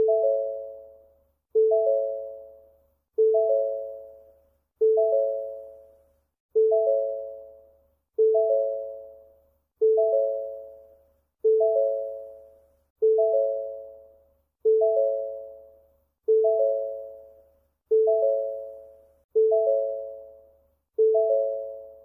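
Electronic alert chime: a rising three-note chime that fades out after each strike, repeating steadily about every second and a half.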